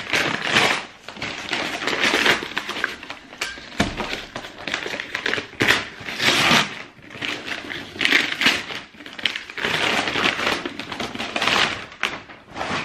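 Brown paper wrapping crinkling and tearing as it is cut and pulled off a cardboard shoebox, in irregular bursts of rustling.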